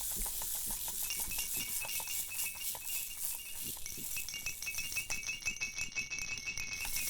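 Unexplained fast rattling clicks, several a second and fairly even, over a high hiss, with faint thin high whistling tones joining about a second in and growing stronger partway through.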